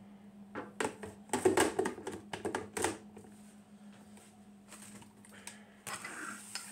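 Personal blender's plastic cup being flipped and fitted onto its motor base: a cluster of sharp plastic clicks and knocks in the first three seconds, over a steady low hum.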